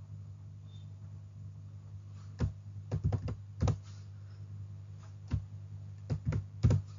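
Computer keyboard keystrokes, about ten taps in two short clusters starting about two seconds in, over a steady low hum.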